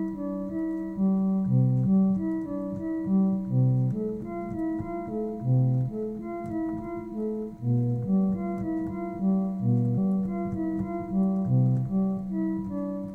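Homemade additive synthesizer playing a bowed-cello-like patch with heavy reverb: sustained low notes changing about once a second, with a slow melody moving above them.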